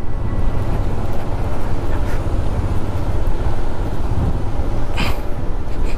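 Motorcycle riding on a rough mountain track, with wind buffeting the microphone over the running engine. Two short hissing rushes come about two and five seconds in.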